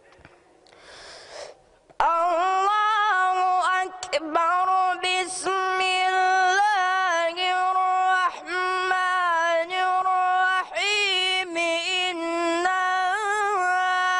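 A boy's high voice reciting the Quran in the melodic, drawn-out mujawwad style, beginning about two seconds in with long held notes ornamented with wavering turns and glides, broken by short pauses for breath.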